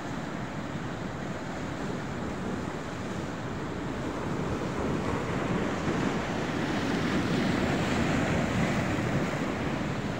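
Sea waves washing against a rocky shore, a steady wash of surf that swells a little about six seconds in.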